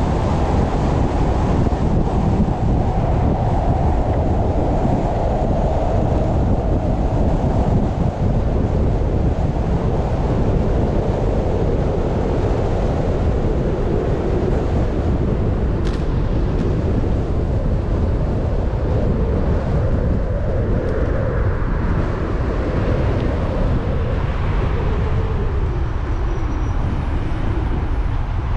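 Steady wind buffeting on the microphone of a bicycle-mounted camera during a downhill ride, a dense low rumble with road noise mixed in.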